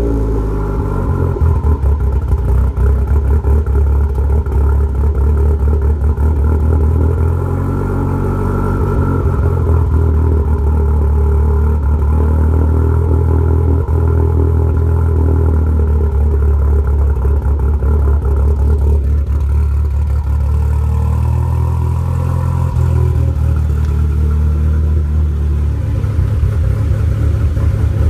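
Turbocharged car engine idling after a cold start on oversized 2200cc injectors, the note pulsing unevenly, with the revs settling down at the start and shifting slightly about two-thirds of the way through. Base timing is not yet set, and the owner hears a loose exhaust manifold leaking in this running.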